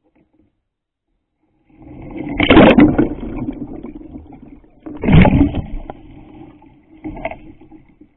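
Sea kayak turning over and coming back up: water rushing, splashing and gurgling around the deck-mounted camera as it goes under. It comes in three surges, the first two loudest.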